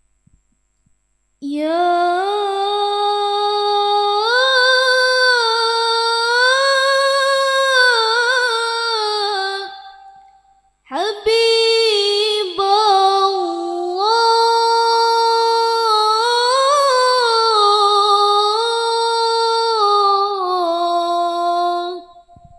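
A woman's solo voice singing unaccompanied into a microphone, in two long phrases with a short break about ten seconds in. The held notes slide and are ornamented with quick turns.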